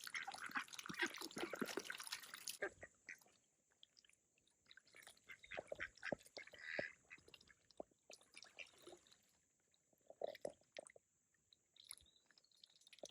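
Ducks feeding and dabbling in shallow pond water: dense wet clicking and splashing for the first couple of seconds, then scattered dabbling clicks with a few short soft quacks.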